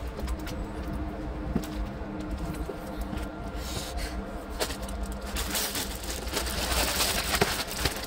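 Rustling of a clear plastic bag being handled, with scattered small clicks, over a faint steady low hum. The rustling grows louder in the second half.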